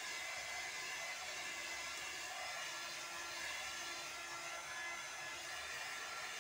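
Handheld electric hair dryer running steadily, blowing air over a freshly bathed puppy's wet fur to dry it.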